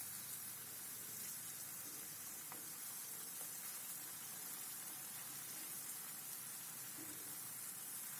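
Food sizzling in hot oil in a pan, a steady hiss.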